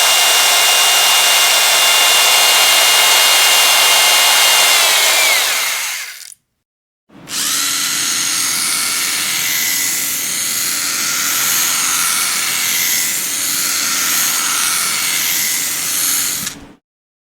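Electric power drill running at full speed with a steady high whine, then slowing and stopping about six seconds in. After a short pause it runs again for about nine seconds, its whine wavering slightly, and cuts off sharply.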